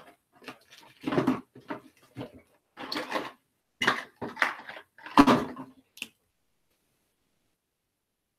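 Small objects being handled and rummaged through on a table, a string of irregular knocks and rattles. The sound cuts to dead silence about six seconds in.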